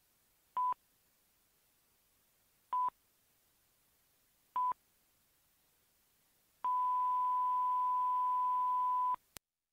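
Answering machine beeping at the end of its messages: three short beeps about two seconds apart, then one long beep of about two and a half seconds, cut off by a click.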